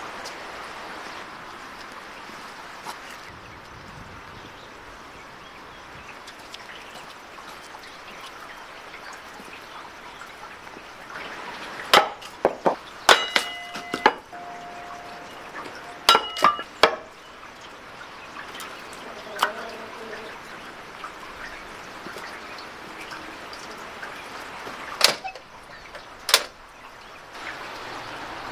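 Dishes and utensils being handled: a run of sharp, ringing clinks about halfway through, then two louder knocks near the end, over a steady rushing background noise.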